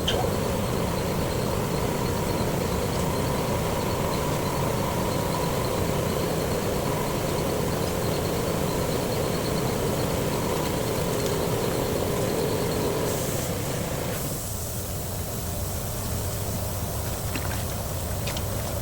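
A workshop machine running steadily with a hum. About fourteen seconds in its sound changes, the hum dropping away and a higher hiss coming up.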